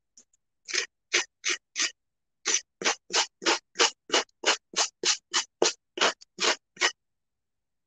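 A sanding block is rubbed in quick strokes along the edge of a decoupaged tile coaster, about four scrapes a second, to sand off napkin paper that overhangs the edge. There is a short pause near the 2-second mark, and the strokes stop about a second before the end.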